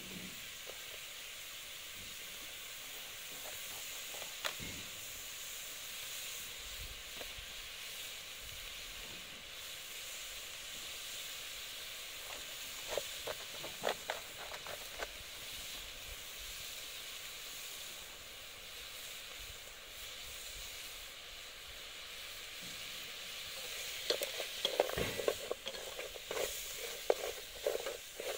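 Food sizzling as it cooks: a steady hiss with scattered clicks and scrapes of stirring, busiest near the end.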